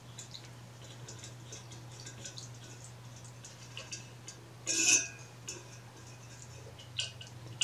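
Light metallic clicks and scrapes of a hex key tightening the set screw on a squirrel-cage blower wheel's hub, with one louder scraping clatter about five seconds in and a couple of sharp clicks near the end.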